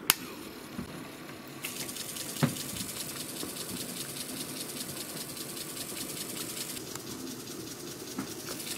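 A Commodore 1541-type floppy drive (Newtronics/Mitsumi D500 mechanism) clicks shut on a disk, then spins it with a steady mechanical whir from about two seconds in. The drive runs nonstop because its U4 chip has been pulled, which holds the disk spinning for cleaning.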